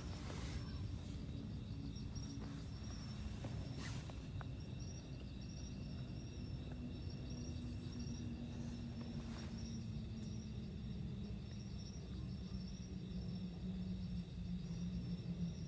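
Insects, such as crickets, chirring steadily with a high pulsing trill, over a low steady hum.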